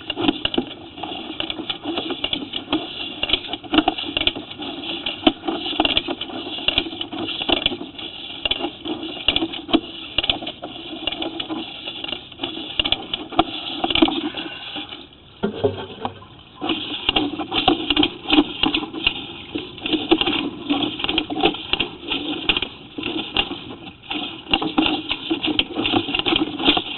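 Water from a garden hose running and splashing through a sanitary sewer line, a dense crackling rush that dips briefly about halfway through.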